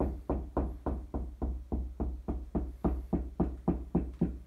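Knuckles knocking on drywall in a quick, steady rhythm of about four knocks a second while the hand moves along the wall. It is a stud-finding knock test: the hollow sound over the empty wall cavity versus a duller sound where the drywall sits over a stud.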